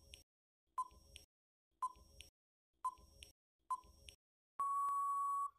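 Countdown timer sound effect: four short beeps about a second apart, then one longer steady beep of just under a second near the end, marking time up.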